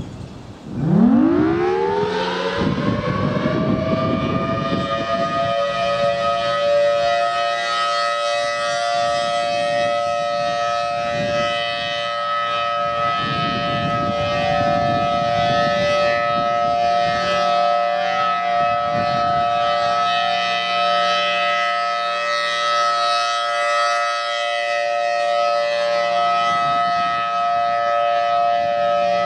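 Federal Signal Thunderbolt 1000T outdoor warning siren winding up about a second in, its pitch rising over several seconds, then holding a loud, steady two-note wail.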